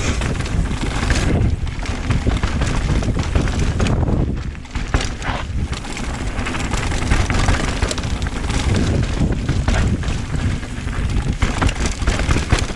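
Mountain bike descending a dirt trail: wind buffeting the microphone over the tyres rolling on dirt, with constant small clicks and knocks from the bike rattling over bumps.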